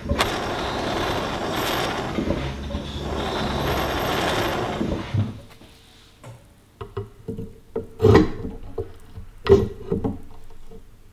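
Handheld gas blowtorch flame hissing steadily on a rusty cast-iron grinder frame, shut off about five seconds in. It is followed by a scatter of metal clicks and knocks from tools against the iron, two louder knocks near the end.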